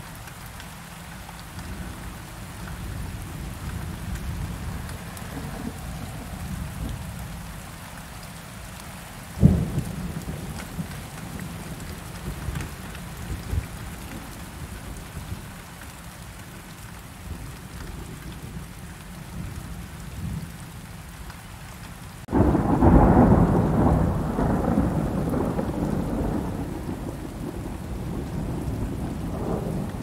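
Thunderstorm with steady rain and low rolling thunder. A sharp thunderclap cracks about nine seconds in, and about twenty-two seconds in a much louder thunder crash breaks out suddenly and rumbles away over several seconds.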